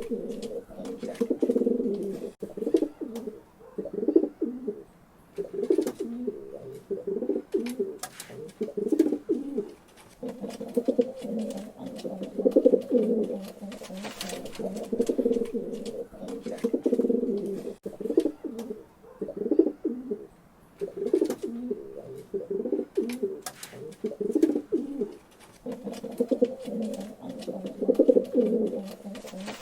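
Pigeons cooing, low throaty coos in repeated phrases of a second or two with short pauses between, and a few faint clicks among them.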